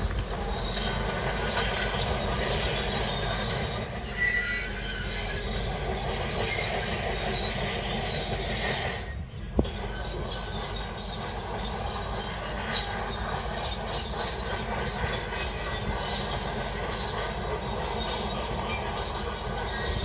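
Shantui crawler bulldozer working, its steel tracks squealing and clanking over the engine's steady running. About nine seconds in the sound briefly drops away and there is a sharp click.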